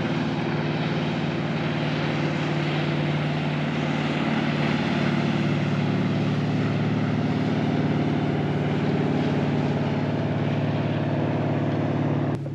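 An engine running steadily at a constant speed, with an even low hum.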